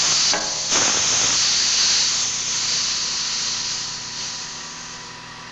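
Pressurized gas hissing out of a drum of spray-foam resin as it is vented. The hiss comes on strongly just under a second in and then dies away gradually. It is the sign of blowing agent gassing from resin that has been stored too warm.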